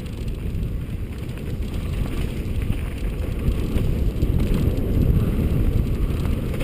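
Wind buffeting the microphone and the rumble and rattle of a mountain bike riding fast down a rough dirt singletrack, growing louder about four seconds in.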